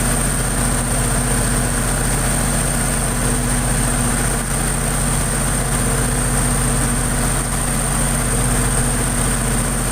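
Diesel generator set running steadily at constant speed, with an even low drone and a steady high-pitched whine over it.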